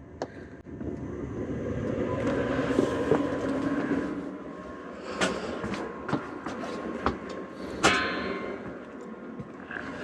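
RV water-heating circulation pump switched on and running with a steady hum that swells for a few seconds, then eases. Several sharp clicks or knocks come in the second half.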